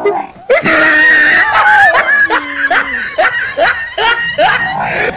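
A person screaming and laughing: a held cry, then a run of short rising shrieks about three a second.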